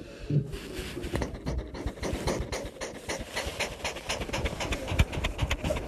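Domestic cat panting with its mouth open: a quick, rhythmic run of short breaths.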